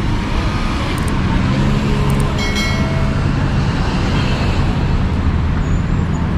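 Steady road traffic noise from cars on an adjacent busy road. A low engine hum strengthens through the middle few seconds.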